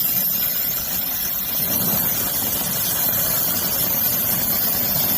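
Brazing torch flame burning steadily with an even rushing noise as it heats a copper joint to fill a hole with filler metal.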